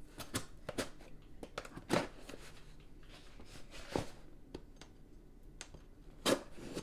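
Knife slitting the packing tape on a cardboard shipping box: a run of short scrapes and rustles, with louder strokes about two, four and six seconds in.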